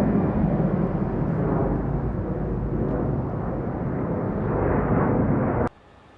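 Jet aircraft engine noise: a steady, loud rushing rumble that swells slightly and then cuts off abruptly near the end, leaving only faint hiss.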